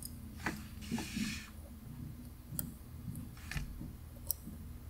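A few faint, separate light clicks of small hard objects, with a brief soft rustle about a second in, over a low steady hum.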